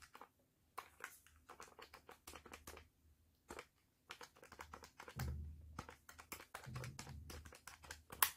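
Quiet, irregular tapping clicks as a long calculation is keyed in, with a sharper click near the end.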